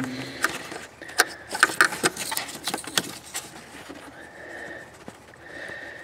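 Scattered light clicks and scrapes of fingers working the plastic quick-connect retainer on the EVAP purge valve hose, mostly in the first half.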